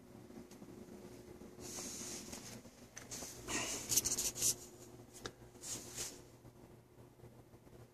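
Short bursts of close rustling and scuffing against the microphone, loudest about four seconds in, over a faint steady hum.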